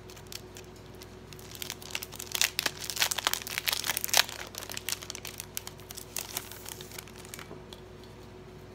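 Clear plastic cello bag crinkling and crackling in the hands as it is opened and a booklet is pulled out: a dense run of crackles that starts about a second and a half in, is busiest in the middle, and dies away near the end.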